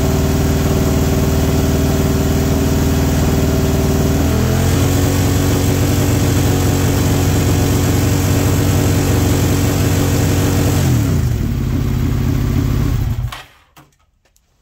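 Second-generation Suzuki SV 90-degree V-twin held at a steady high idle of about 5,000 RPM for a stator output test, rising slightly in pitch about four seconds in. The revs drop about eleven seconds in and the engine cuts off suddenly shortly after.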